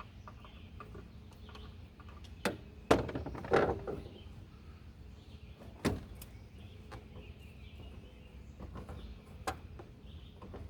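Several sharp knocks and clunks over a low steady hum as supercharger intake piping and its fittings are loosened and handled by hand. The loudest knocks come about three seconds in, with single ones later.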